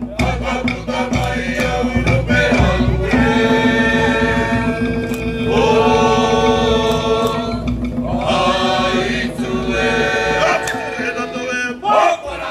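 Group chant in long held notes, typical of a Cook Islands dance performance. Log drums beat quickly in the first few seconds, then the voices carry on over a steady low drone.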